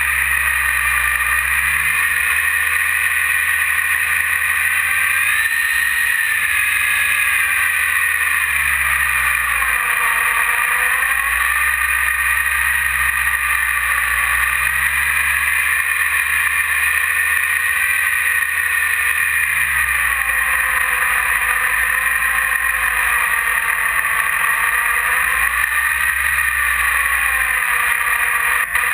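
E-flite 480 1020 kV brushless outrunner motor and propeller whining as heard from the onboard GoPro, its pitch rising and falling slowly as the throttle changes, with wind rushing over the airframe and microphone.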